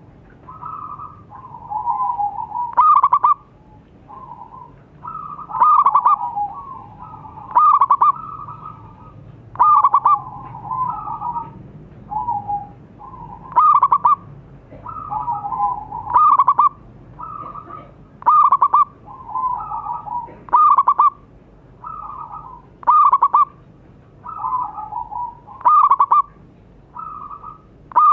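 Zebra dove (perkutut) cooing: a rolling, trilled coo phrase repeated about every two seconds, each phrase with a few short, sharp notes.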